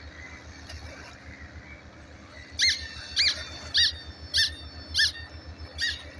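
A run of about seven short, high squeaky calls, each rising and falling in pitch, coming roughly every half-second from a little over two seconds in, over a steady low rumble.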